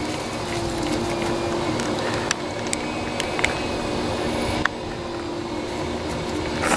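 Steady mechanical hum with a faint held tone, broken by a few light clicks.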